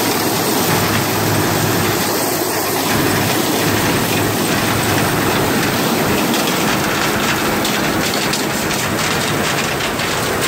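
Massey Ferguson 410 combine harvesting corn at close range: the engine and threshing machinery make a loud, steady mechanical noise, with a quick rattle of ticks building over the last few seconds as it goes past.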